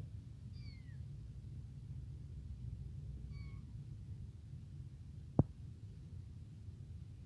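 Tiny kitten giving two short, faint, high-pitched mews, the first falling slightly in pitch, over a low steady background rumble. A single sharp click cuts in near the end.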